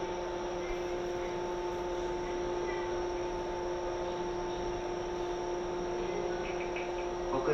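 Steady electrical hum inside a 415-series electric train car, several fixed tones over a low rumble, holding the same pitch throughout.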